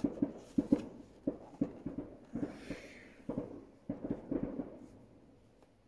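A man's stifled laughter behind a hand over his mouth: short breathy giggles in uneven pulses that die away near the end.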